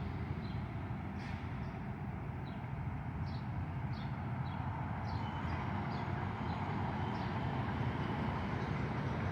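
A train's steady low rumble, with short high bird chirps over it.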